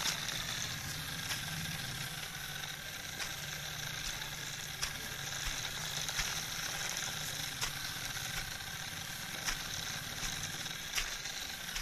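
Small electric motor of a homemade toy tractor running steadily with a whirr, with scattered faint ticks.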